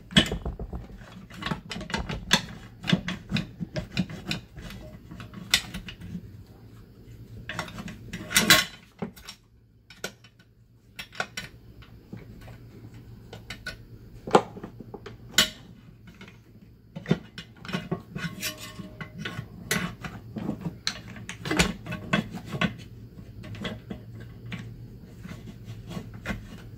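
Irregular metallic clicks, knocks and scraping as the master cylinder parts of a UFP A-60 surge brake actuator are worked by hand into its steel housing, the parts refusing to seat. A few sharper knocks stand out, and a faint steady low hum runs underneath.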